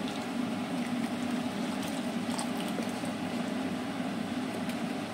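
Blended watermelon juice poured from a mixer jar into a steel mesh strainer, the liquid splashing and draining through. A steady low hum underlies it.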